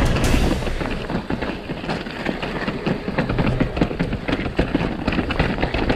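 Mountain bike clattering down a rocky trail, its tyres knocking over stones and its frame and chain rattling in a dense, irregular run of knocks.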